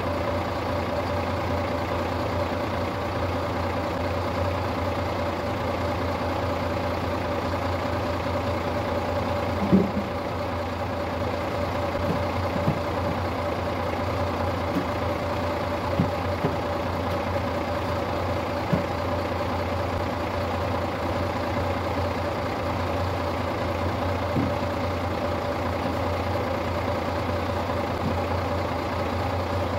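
The six-cylinder diesel of a Star 200 truck idling steadily in frost, an old engine whose injection pump elements and injector nozzles the owner calls very worn. A few short knocks sound over the idle, the loudest about ten seconds in.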